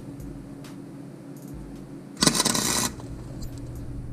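A cheap wire-feed welder arc-welding one short crackling burst, about two seconds in and lasting under a second, with a steady low hum around it. The welder is tacking a nut onto a broken-off exhaust manifold bolt in the engine's cylinder head so the bolt can be backed out.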